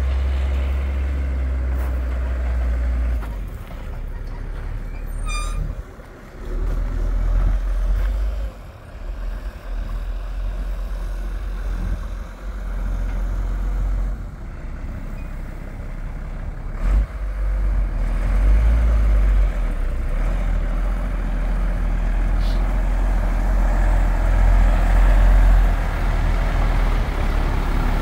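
International S-series grain truck engine running as the truck drives across the yard and pulls up, with a heavy low rumble that grows louder as it nears, in the last few seconds. A brief high squeal sounds about five seconds in.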